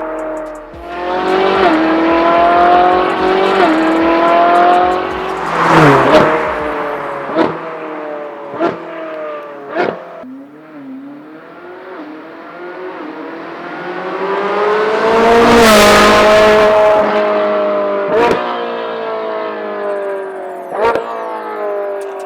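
Ferrari 458's naturally aspirated V8 revving through a new aftermarket exhaust. It makes several rising pulls, a handful of sharp quick blips, and one long climb to high revs about two-thirds of the way through before dropping back.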